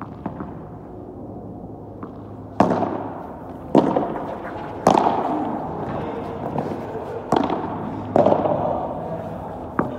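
Padel rally: a padel ball struck by solid paddle rackets, six sharp cracks, the first three about a second apart, starting a little over two seconds in. Each hit echoes under the court's enclosed fabric dome.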